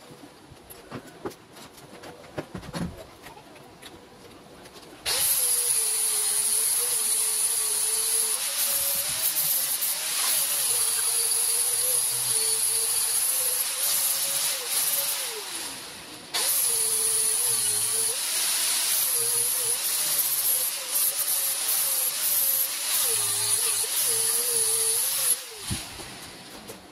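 Angle grinder grinding on a steel tube frame. It starts about five seconds in and runs with a high whine, its pitch wavering as the disc bears on the metal. It winds down briefly about halfway, then starts again and runs until shortly before the end.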